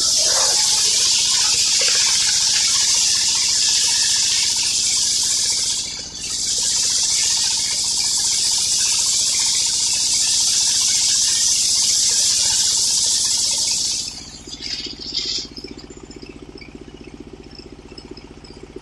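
Engine-driven circular sawmill blade cutting through old coconut-palm wood: a loud high hiss that dips briefly about six seconds in and ends after about fourteen seconds, over the engine's steady running, which carries on alone after the cut.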